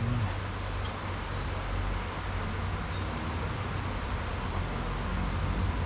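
Steady rush of a mountain stream with a low rumble underneath, and a small bird singing faint, high trills during the first three seconds.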